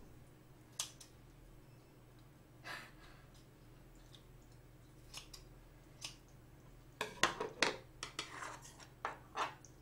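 Kitchen scissors snipping through cooked shellfish meat in a pan, a few sharp single snips spread over several seconds. From about seven seconds in comes a louder run of quick clicks and smacks.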